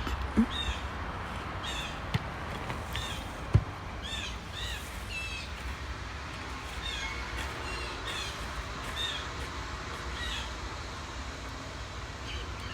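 A bird calling over and over in short, arched calls, with three brief thumps in the first few seconds.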